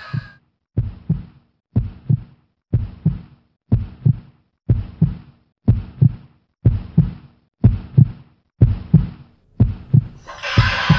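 Heartbeat sound effect: a steady lub-dub of paired low thumps, about one beat a second. Near the end a louder wash of noise or music cuts back in over it.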